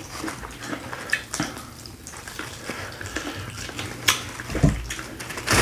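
Close-miked wet chewing and lip smacking of people eating a sauce-coated deshelled seafood boil by hand, a steady patter of small sticky clicks with a few sharper clicks about four seconds in.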